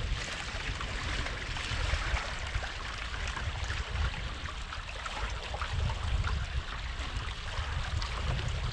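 Water rushing and splashing along a sailboat's hull as it sails, a steady crackly wash with many small splashes, with wind buffeting the microphone in low gusts.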